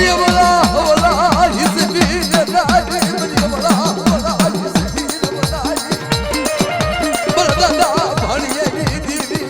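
Instrumental passage of Gujarati devotional folk music: a steady drum beat of about two strokes a second under a melody instrument whose pitch wavers quickly, with fast high percussion ticking throughout.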